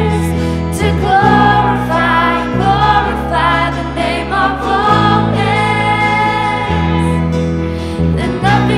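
Church worship band playing a contemporary worship song: a lead voice sings the melody over guitars, bass and keyboard, the bass holding long notes that change every second or two.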